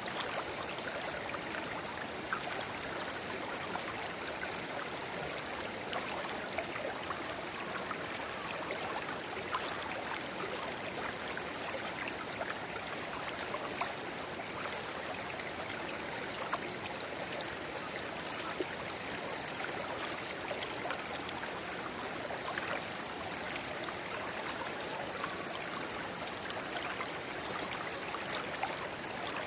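Shallow river babbling steadily, with a small spring-fed rivulet pouring into the main current: a dense, even rush of water flecked with little splashes and droplet plinks.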